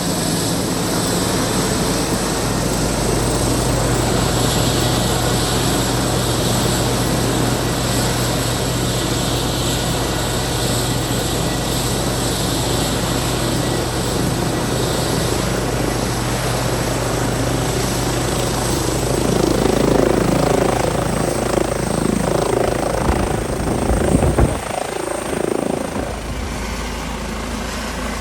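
Airbus EC135 twin-turbine helicopter running, a loud steady drone of rotor and turbines. About twenty seconds in it grows louder and rougher, with gusty rumbling from the rotor downwash.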